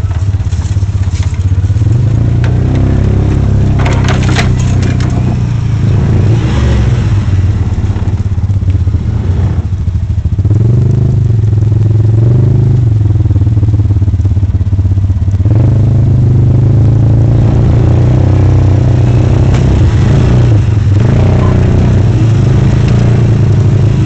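Off-road side-by-side (UTV) engine running, heard from inside the vehicle as it crawls over a rough trail, its speed rising and falling with a step up about fifteen seconds in. A few knocks and rattles about four seconds in.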